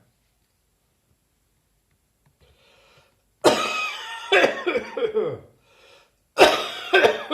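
A person coughing in harsh, dry fits. A first bout of several coughs in quick succession starts about three and a half seconds in, then comes a short breath, and a second bout near the end.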